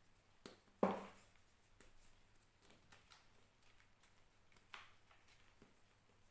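Reformed gym chalk being crushed: one sharp crunch about a second in, then a few fainter crunches and crackles.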